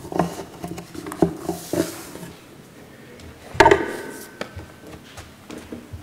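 Scattered light knocks and rustles from people moving about in a church sanctuary with wooden pews, with one louder knock about three and a half seconds in.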